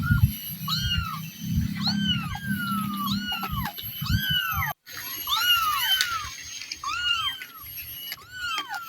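Kitten mewing over and over in short, high-pitched, arching cries, one or two a second, with a low rumble underneath in the first half and a brief break about five seconds in.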